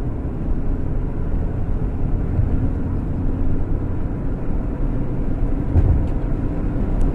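Steady road and engine noise heard inside a moving vehicle's cab while driving on a highway, deep and rumbling.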